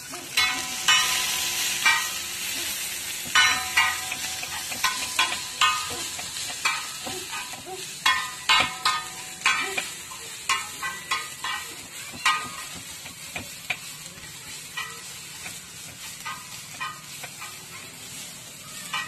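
Shredded cabbage and vegetables sizzling on a large flat griddle (tawa), stir-fried with a metal spatula that scrapes and strikes the pan over and over, each strike ringing briefly. The strikes come thick and fast in the first half, then thin out and grow fainter.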